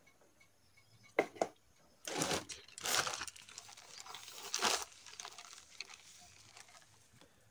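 A plastic packet crinkling as it is handled and opened: two sharp clicks, then three louder bursts of crackling rustle, with fainter rustles after.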